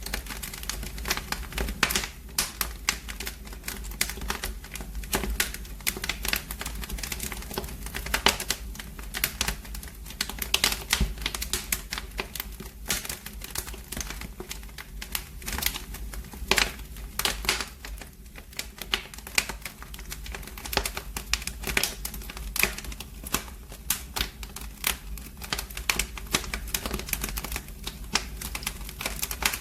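Fire in a fireplace crackling: a dense, irregular run of pops and snaps over a steady low rumble.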